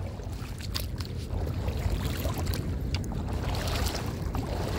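Shallow water sloshing and splashing around legs wading through it, over a steady low rumble.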